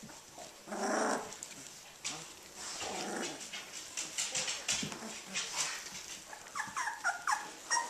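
Eighteen-day-old Australian Shepherd puppies tussling together: a couple of short rough puppy vocal sounds and scratchy scuffling on the bedding, then a quick run of about half a dozen short high yips near the end.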